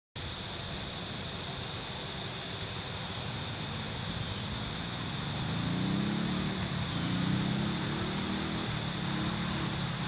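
Insects trilling in a steady, high-pitched chorus, with a faint low rumble underneath. The siren is silent.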